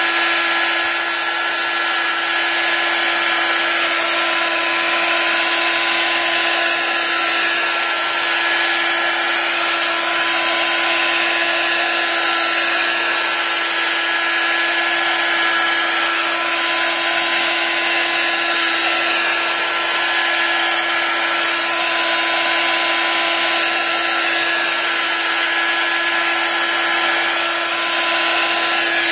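Electric hot-air blower running steadily at one speed, a constant rush of air over a fixed motor hum and whine, used to warm the adhesive under a freshly fitted iPad glass panel.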